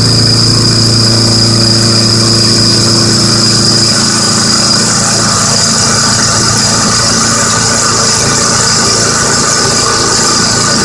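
CNC milling machine running a 1/2-inch end mill through carbon steel: a steady low hum under a steady high-pitched whine and hiss.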